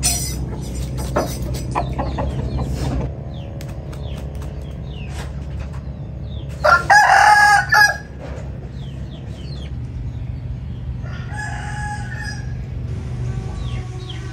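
A rooster crowing once loudly about seven seconds in, then a second, fainter crow a few seconds later. Small birds chirp over a steady low hum.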